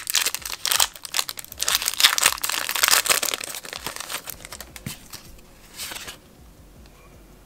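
Foil Pokémon booster-pack wrapper crinkling as it is handled and the cards are pulled out of it: dense crackling for the first few seconds, thinning out, with a last crinkle about six seconds in.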